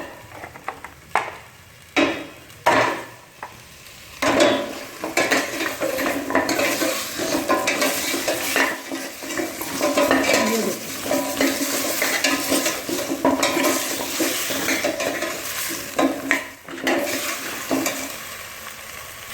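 Chicken leg pieces sizzling as they fry in hot fat with garlic and ginger in a pot, with a spoon knocking and scraping against the pot as they are stirred. A few separate knocks come first, and the steady sizzle builds from about four seconds in.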